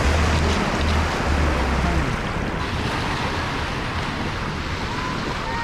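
Wind on the microphone: a steady outdoor rush, with heavy low buffeting for the first two seconds that then eases into an even hiss.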